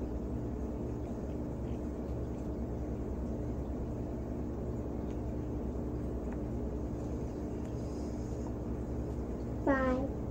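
Steady low hum and rumble of background noise with one constant tone, a few faint ticks, and a brief voiced sound near the end.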